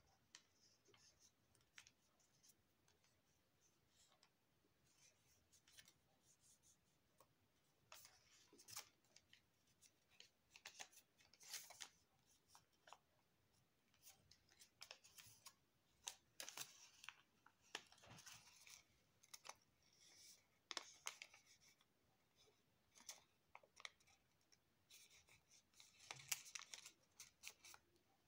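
Faint, irregular rustling and crinkling of a sheet of origami paper being handled, folded and creased by hand, with crisp little crackles that come more often in the second half.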